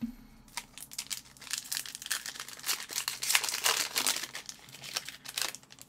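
Foil wrapper of a hockey trading-card pack crinkling and tearing as the pack is opened: an irregular run of crackles that is loudest around the middle and stops just before the end.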